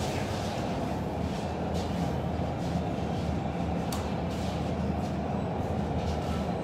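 Steady low hum of bakery kitchen machinery running, with a single light click about four seconds in.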